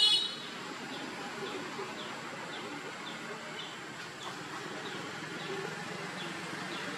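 A brief, loud, high-pitched squeak right at the start. After it, a faint short chirp repeats about twice a second over a steady outdoor background hiss.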